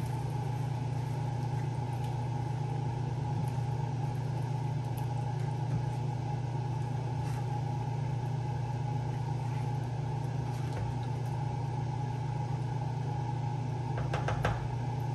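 Steady low machine hum, unchanging throughout, with a few faint clicks near the end.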